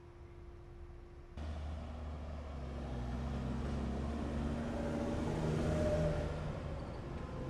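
A motor vehicle's engine running with a low rumble that starts abruptly about a second and a half in, swells to its loudest around six seconds in, then eases off slightly.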